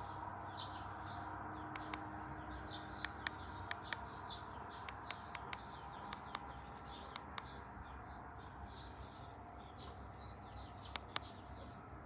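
Small birds chirping repeatedly, mixed with scattered sharp short ticks, over a steady low background hum.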